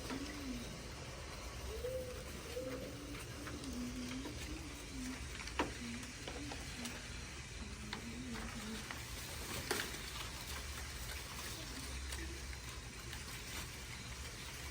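Someone softly humming a wavering low tune over faint rustling, with two sharp clicks near the middle.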